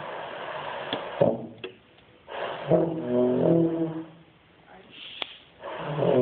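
Beginner's euphonium: a breathy rush of air with hardly any note, then a short brass note about two and a half seconds in that wavers and steps down in pitch, and another note beginning near the end, each starting with a puff of breath.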